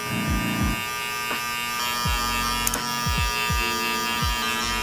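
Electric hair clipper with a guard fitted, buzzing steadily while blending a taper into the beard, with brief repeated dips in pitch.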